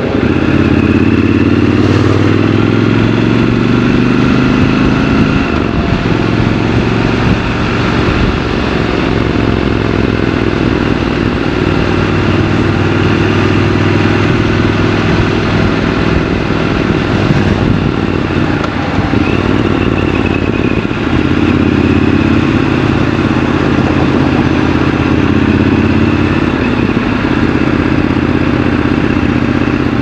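Triumph Scrambler 1200 XC's parallel-twin engine running as the motorcycle rides through city traffic, with wind and road noise. The engine note holds steady, then changes with the throttle a few times, at about six seconds, twelve seconds and twenty-one seconds in.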